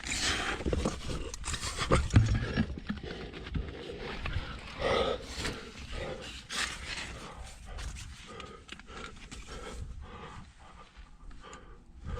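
A climber grunting and breathing hard while squeezing up a very tight rock chimney, with irregular scraping and knocking of body and gear against the rock; a heavier knock comes about two seconds in.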